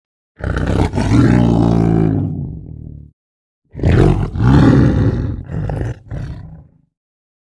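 A large animal roaring: two long, loud calls, the second breaking into shorter parts toward its end.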